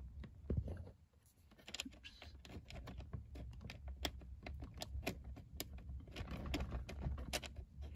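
Light, irregular clicks and taps of a small nut being fed on by hand onto a threaded stud, taken slowly to avoid cross-threading.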